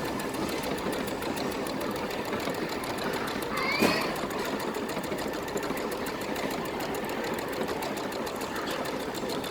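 Brother NV180 computerized sewing machine running steadily, a rapid, even stitching rhythm as it sews out small lettering. A single brief, louder sound cuts in a little under four seconds in.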